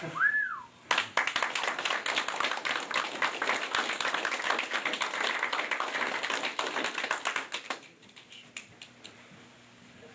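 A small audience applauding: dense clapping starts about a second in, runs for about seven seconds, then stops abruptly, leaving a few scattered claps. Just before it, a short high tone rises and falls.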